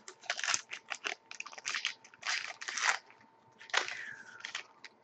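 Trading cards and their packaging handled in short bursts of crackling and rustling, with a brief scrape and a falling squeak near the end.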